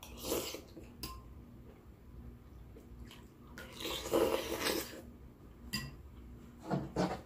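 Close-miked eating sounds of chicken noodle soup: slurps and small clicks in several short bursts, the longest about four seconds in.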